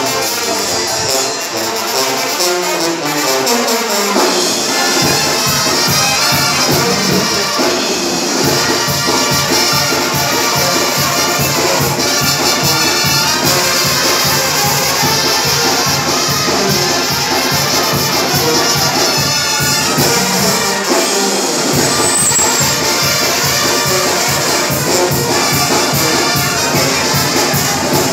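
Live Mexican banda brass band playing. Trumpets and trombones carry the melody over a steady beat, and a sousaphone bass line comes in about five seconds in and drops out briefly just after twenty seconds.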